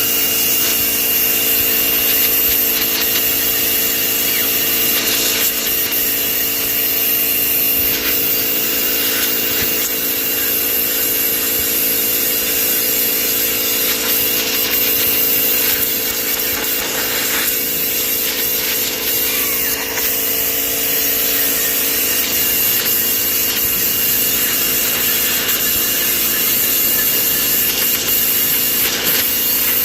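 Pressure washer (Gerni) running steadily: a constant motor-pump hum under the hiss of the water jet as it blasts down the birds' feeding trays.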